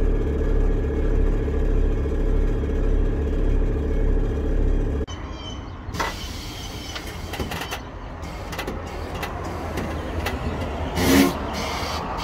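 Air ride suspension raising the car. A steady motor hum pulses about twice a second and stops abruptly about five seconds in. A quieter hiss with scattered clicks follows, with a short louder burst near the end.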